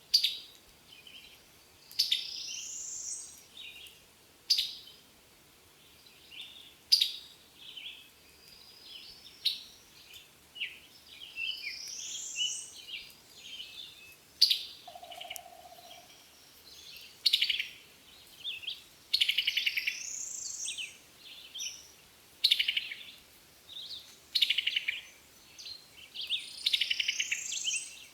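Songbirds calling: a string of sharp chirps, rising whistled phrases and short buzzy trills every second or two, with one brief low steady note about halfway through.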